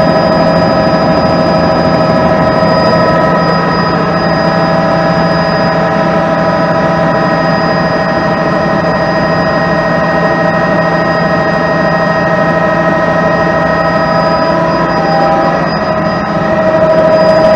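Helicopter cabin noise in flight from a single-turbine helicopter: a steady drone of engine and rotor with a constant whine on top. The noise dips briefly near the end, then comes back slightly louder.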